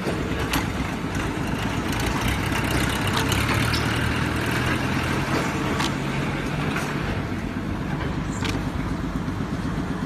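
Engine of a concrete mixer pump running steadily while it pumps concrete through the delivery pipeline, its hum a little stronger in the middle. A few sharp clicks sound over it.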